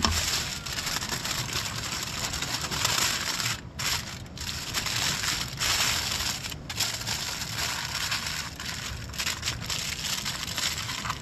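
Aluminium foil crinkling and crackling as it is folded and pressed shut into a parcel by hand, with a couple of short pauses in the handling.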